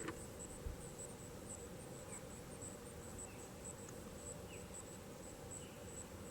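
Insect chirping in a high, steady pulsing rhythm of a few pulses a second, with a few faint short falling bird chirps over low background hiss.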